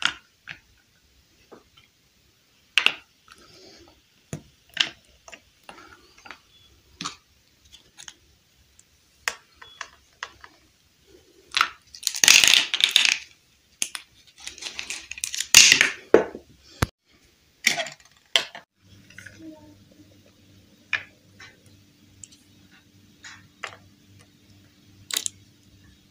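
Small hard plastic toy dollhouse furniture pieces being handled and set down on a wooden surface: a series of sharp clicks and taps, with two longer stretches of louder handling noise about halfway through. A faint low hum comes in about three quarters of the way through.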